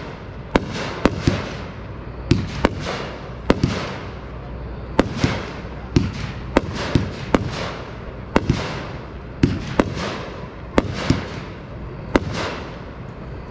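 Dominator Pro 500-gram 12-shot firework cake firing a rapid, uneven series of shots and aerial bursts, each a sharp bang trailing off into a fading hiss.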